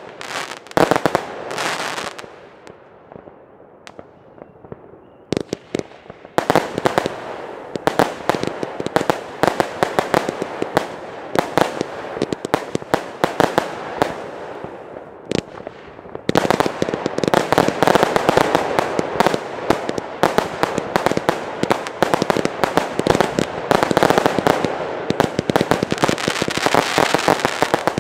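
Fireworks batteries firing rapid bangs and bursts. After a dense opening volley there is a lull of about three seconds, then the shots resume. From a little past halfway they build into a dense, near-continuous barrage.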